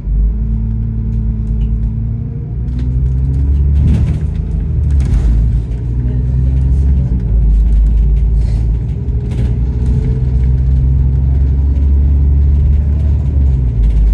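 Bus engine and drivetrain running under load as the bus pulls away and gathers speed. A loud low drone whose note rises and drops back several times, with a few brief rattles.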